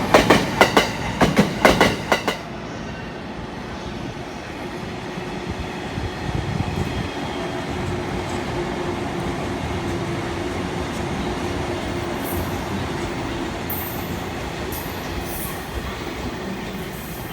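Passenger train wheels clacking rapidly over rail joints, which stops abruptly about two seconds in and gives way to a steady rail rumble.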